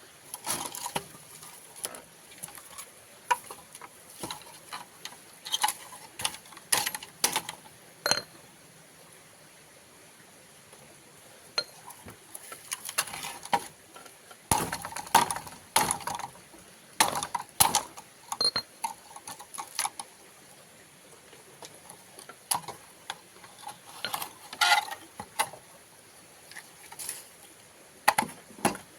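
Irregular knocks and clinks of cookware and firewood being handled, as a pot of water and a wood fire are set up; quieter for a few seconds in the middle.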